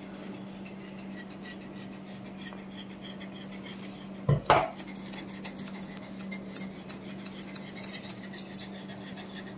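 Grooming scissors snipping a Shih Tzu's long ear hair: a fast run of crisp metallic snips, about four or five a second, starting about halfway in after a single thump. A steady low hum runs underneath.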